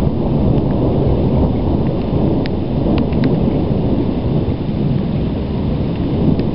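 Low, continuous rumbling thunder from an electrical storm, with a few faint sharp clicks over it.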